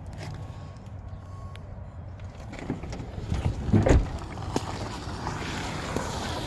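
The rollover-damaged door of a 2016 Honda Pilot being worked by hand, with knocks building to a heavy thump about four seconds in, over a low steady rumble.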